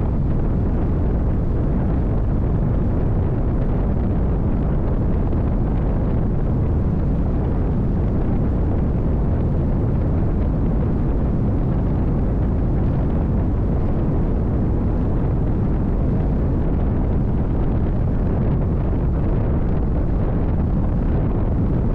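Steady low roar of a NITRA 22 race boat's V8 engine running, mixed with wind buffeting the onboard microphone.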